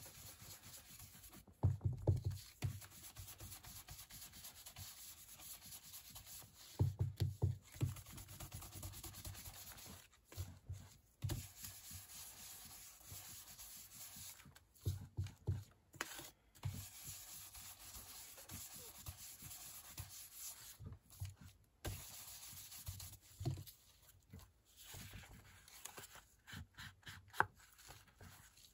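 Foam sponge dauber rubbing ink around the edges of embossed cardstock laid on paper: a faint scratchy rubbing, with soft dull thuds every few seconds.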